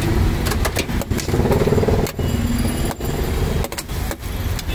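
Street traffic with a motor vehicle engine running: a steady low rumble, with sharp clicks and knocks scattered through it.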